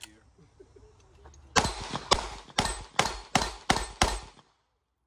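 Handgun fired seven times in quick succession, about two shots a second, each crack trailing a short echo.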